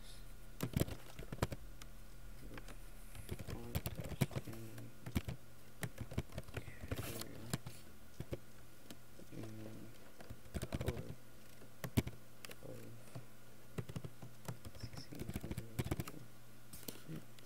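Typing on a computer keyboard: irregular runs of keystroke clicks with short pauses between them, over a faint steady low hum.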